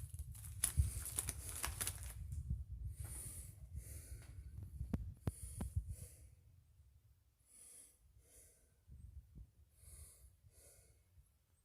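Rustling and knocking handling noise close to the microphone, then from about six seconds in, soft breaths about once a second close to the microphone.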